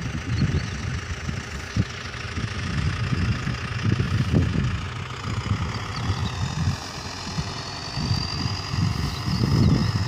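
Tractor engine running steadily as it tows a tank sprayer with a wide boom. A faint high whine joins about halfway through and rises slightly.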